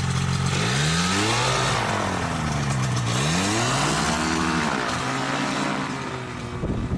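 Paramotor trike's engine revving up and down twice as it rolls away along a dirt track, then easing off near the end.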